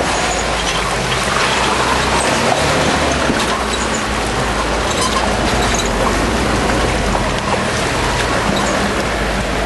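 An off-road 4x4's engine running steadily under load as the truck crawls over muddy, rutted ground, with a constant low rumble and the noise of the tyres working through the mud.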